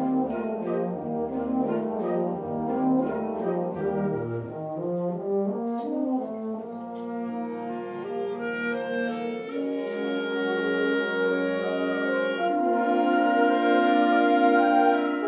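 Wind band playing a concert piece, led by the brass: moving melodic lines at first, then long held chords that grow louder toward the end.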